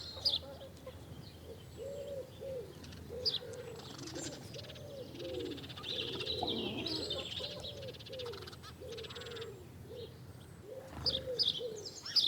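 Birds calling: doves cooing in a run of low, repeated coos, with small birds chirping high over them.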